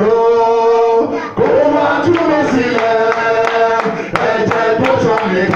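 Men singing a chant-like worship song into microphones, amplified, holding long notes.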